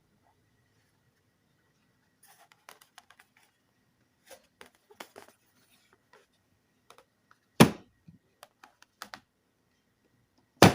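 Small clicks and taps of objects being handled on a hard surface, with two loud sharp knocks, one about halfway through and one near the end.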